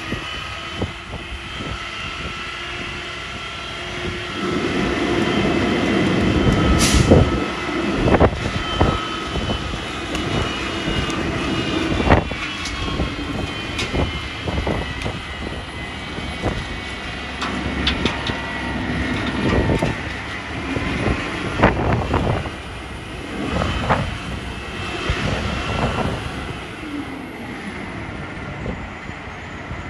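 Front-loading garbage truck compacting its load: the engine and hydraulic pump run under load with a steady whine, the engine picks up a few seconds in, and repeated metallic clanks and bangs come as the packer blade pushes refuse through the hopper.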